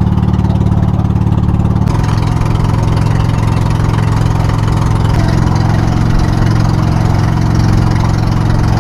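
Motorized outrigger boat (bangka) engine running steadily under way, loud and close, with the rush of water along the hull and outrigger. The engine note shifts slightly twice, about two and five seconds in.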